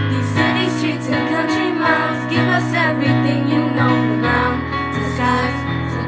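Background music: a song with a sung vocal line over sustained instrumental chords.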